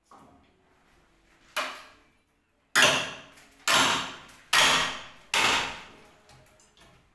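Blows struck on a window frame while it is being forced open: a light knock, a sharper one, then four heavy strikes less than a second apart, each ringing briefly, with a few small clicks near the end.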